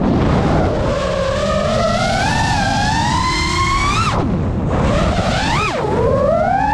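FPV quadcopter's brushless motors whining. The pitch climbs slowly, drops sharply about four seconds in as the throttle is cut, then rises and swings up and down with quick throttle changes, over a low rumble of wind.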